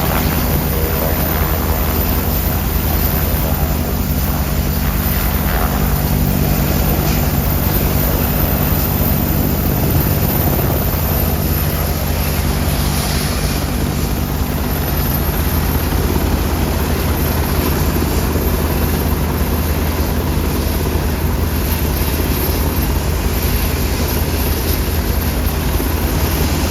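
UH-60 Black Hawk helicopter with its main rotor and twin turboshaft engines running, a steady, unbroken rotor beat and engine noise with a faint high whine above it.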